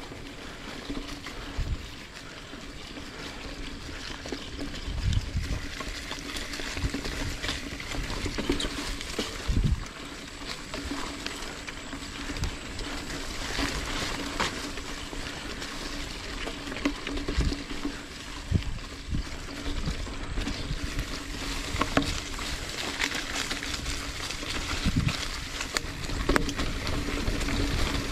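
Mountain bike rolling along a dirt singletrack: continuous tyre and drivetrain noise, with irregular thumps and rattles as the bike goes over bumps, and leaves and grass brushing against the bike and rider.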